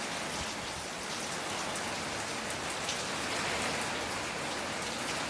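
Rain pouring steadily in a storm: an even hiss of falling rain with faint scattered drop ticks, holding level throughout.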